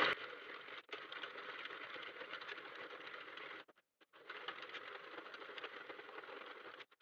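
Sentro 48-needle circular knitting machine being cranked round to knit plain rows, its plastic needles and carriage making a fast, continuous clatter of clicks. The cranking stops for about half a second around three and a half seconds in, then carries on.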